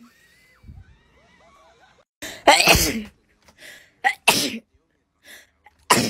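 A person sneezing three times in a row. Each sneeze is a short, loud burst with a quick intake of breath just before it. The first comes about two and a half seconds in and the last near the end.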